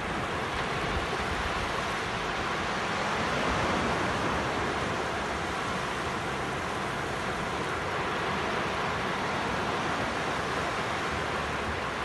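Sea surf: waves breaking offshore and washing up a sandy beach, a steady rushing wash that swells a little a few seconds in.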